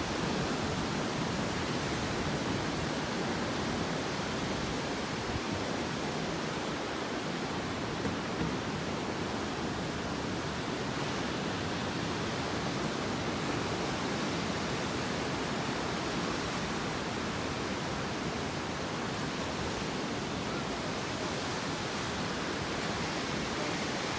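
Steady roar of heavy, typhoon-driven surf breaking on the beach, an even wash of noise with no distinct individual waves.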